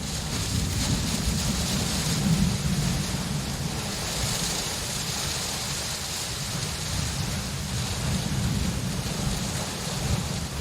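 Steady rain hissing, with a low rolling rumble of thunder underneath that swells about two seconds in and again near the end.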